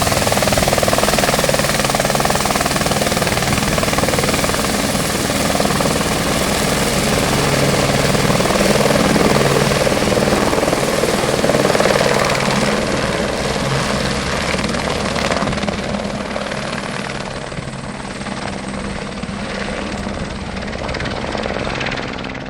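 Helicopter running close by, its rotor and turbine giving a loud steady drone that grows fainter over the last several seconds.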